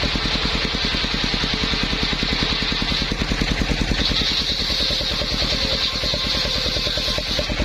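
Engine-driven circular saw machine running steadily, its engine beating with a rapid, even pulse, and a higher hissing whine that swells about four seconds in.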